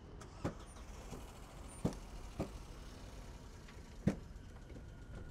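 A few sharp clicks and knocks from a hand working the motorcycle's gear shift lever and footpeg, the loudest about four seconds in, over a low steady background rumble.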